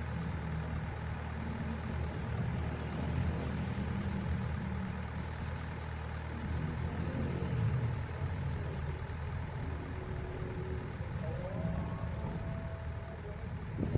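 Steady low rumble of a heavy diesel engine idling, the simulated engine sound of an RC crane truck.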